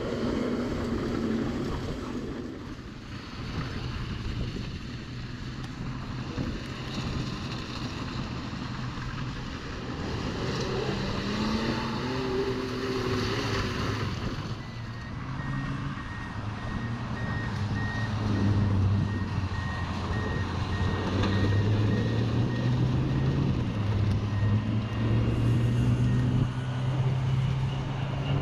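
An SUV's engine running and revving as it drives through mud, with the pitch stepping up and down and growing louder toward the end. A faint, evenly spaced beeping runs through the middle.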